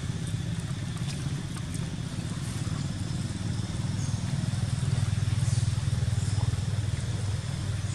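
A low, steady engine rumble that grows louder about five seconds in.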